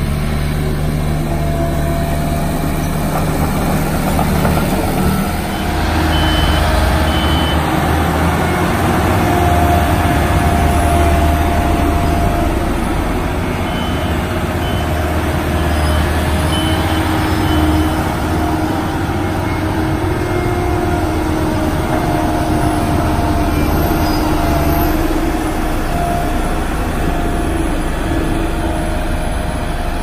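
Diesel engine of a small Komatsu crawler dozer running as it pushes soil. About five seconds in it gives way to the diesel engine of a single-drum road roller running steadily as the roller drives. Faint short beeps sound now and then.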